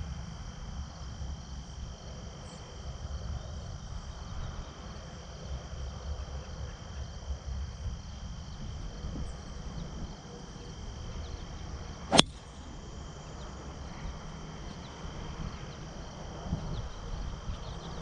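A driver striking a golf ball off the tee about twelve seconds in: one sharp, loud crack of impact. It sits over a steady high drone of insects and a low outdoor rumble.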